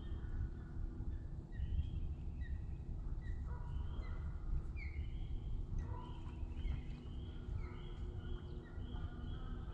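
North American ospreys calling: a long series of short, high whistled chirps, some sliding down in pitch, repeated about every half second, over a low steady rumble.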